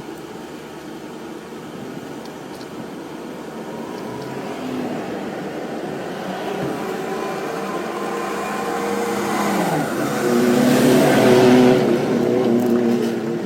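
A motor running, its pitch shifting as it builds to a loud peak near the end, then easing off.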